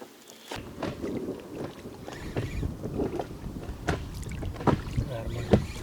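Wind buffeting the microphone over water lapping against an inflatable boat, with a few small knocks scattered through it.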